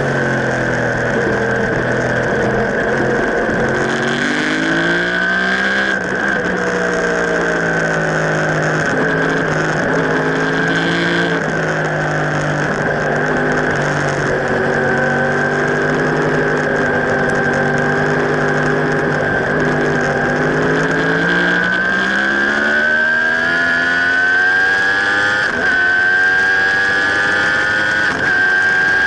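Sport motorcycle engine heard from on board during a fast track lap, its pitch dropping under braking and rising under acceleration, with a long climb in revs near the end.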